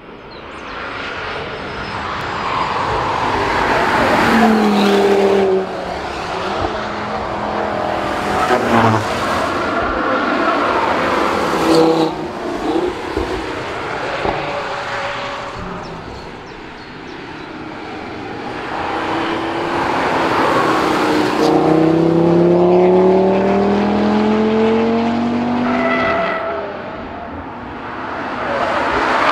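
Audi TT RS prototype's turbocharged five-cylinder engine accelerating hard past on track, its pitch rising through the revs several times over as the car passes again.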